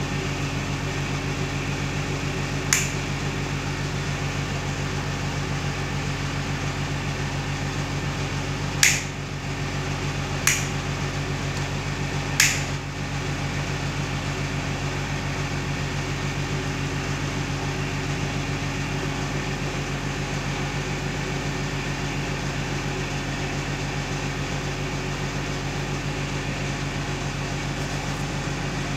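Four sharp clicks of a 16 A modular rocker switch being flipped: one about three seconds in, then three more between about nine and twelve seconds, over a steady low hum.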